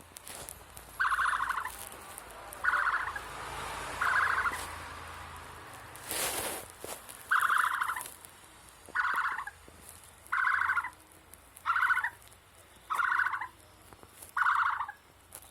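A bird's short, rapidly pulsed call repeated nine times, each about half a second long, roughly one every second and a half, with a longer gap in the middle. A brief whoosh about six seconds in.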